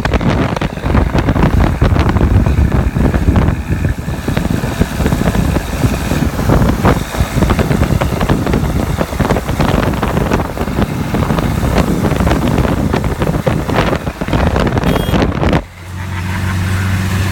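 Wind buffeting the microphone of a moving 1976 Toyota Land Cruiser BJ40, over its four-cylinder diesel engine running at road speed. Near the end the buffeting stops and the engine's steady running comes through clearly.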